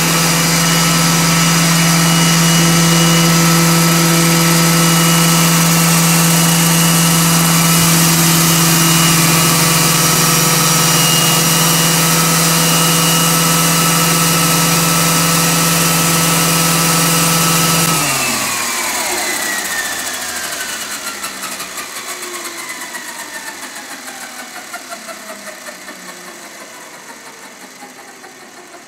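Roban EC-135 scale RC helicopter spooled up on the ground, its motor and rotors giving a steady whine and hum. About 18 seconds in the power is cut: the whine falls steadily in pitch and fades, with a pulsing beat, as the rotors wind down.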